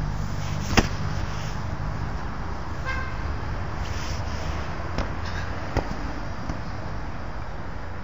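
A football thudding as it is struck: a sharp thud about a second in, the loudest sound, and two lighter ones near five and six seconds. Under it runs a steady low hum, and a short high tone sounds about three seconds in.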